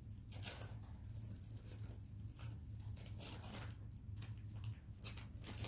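Faint, irregular light clicks and rustles of costume jewelry being handled while a tangle is worked loose, over a low steady hum.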